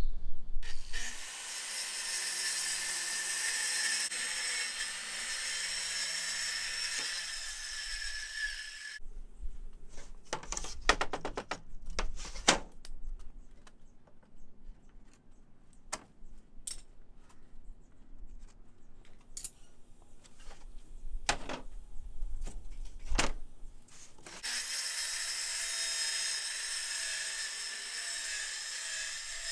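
Makita circular saw ripping 3/8-inch plywood lengthwise: a steady high-pitched cut lasting about eight seconds, then about fifteen seconds of scattered knocks and clicks, then a second cut starting in the last five seconds.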